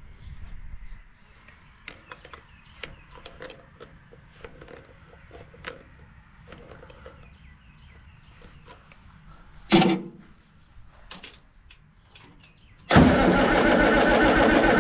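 Light clicks and taps of hand work on the fuel lines, with one sharp knock about ten seconds in. Near the end the starter suddenly begins cranking the Allis-Chalmers D17's six-cylinder diesel steadily, turning it over with loosened injector lines to bleed air out of the fuel system.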